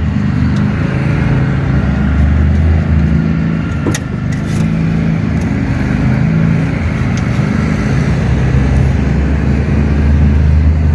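Steady low rumble of a running vehicle engine, with a few sharp clicks about four seconds in and again later.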